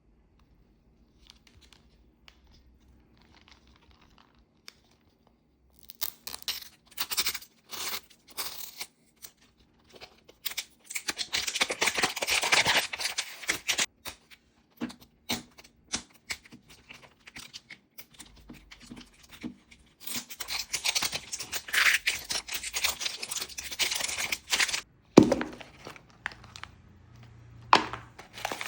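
Plastic Mini Brands toy wrappers being torn open and crinkled by hand, in repeated rustling bursts with small clicks and knocks, after about six seconds of near quiet.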